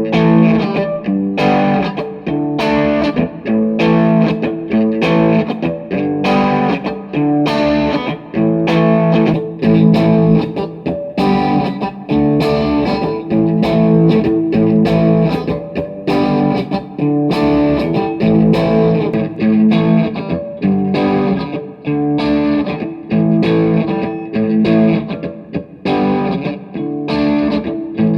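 Electric guitar, a Fender Stratocaster through a Blackstar HT5 amp and 1x12 cab, strumming chords in a steady rhythm with light distortion, picked up by a microphone on the amp.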